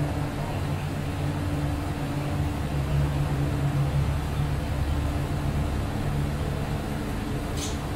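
Steady low machine hum over a faint hiss, with a brief high-pitched sound near the end.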